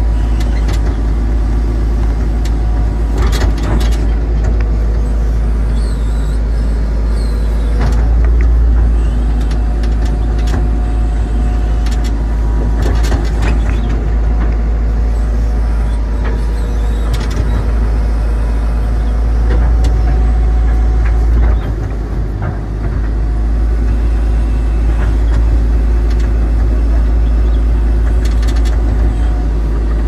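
Tata Hitachi 120 excavator's diesel engine and hydraulics running under digging load, heard from inside the cab with a heavy low rumble. Scattered knocks and scrapes come through as the bucket cuts into earth and stones.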